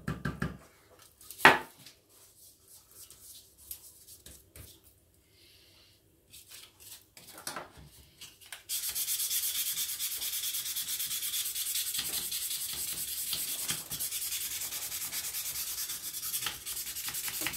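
Very fine abrasive paper rubbing along the rusty steel driver blade of an air stapler: a steady hiss of fast strokes that starts a little past halfway through. The rust is being cleaned off because it was making the blade seize and the stapler jam. Earlier there is one sharp click and a few light handling taps.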